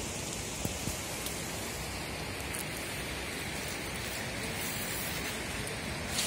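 Steady hiss of water in a wet winter forest, with a few faint ticks scattered through it.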